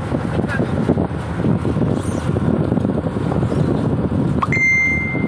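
Fishing-boat deck noise: the boat's machinery gives a steady low hum under wind on the microphone and irregular knocks and rustles. Near the end comes a short rising squeak, then a steady high-pitched tone.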